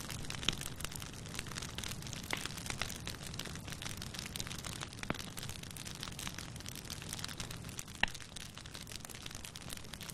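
Wood fire burning steadily, crackling with frequent small pops and a few sharper cracks, the loudest about eight seconds in.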